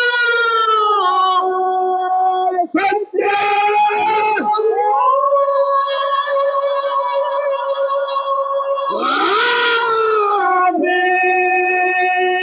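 A man's voice chanting a devotional qasida in long, high held notes that slide between pitches, with two brief breaks for breath about three seconds in.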